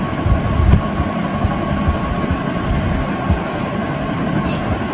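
Steady background hum and low rumble with irregular low thumps, and a faint steady tone running through it.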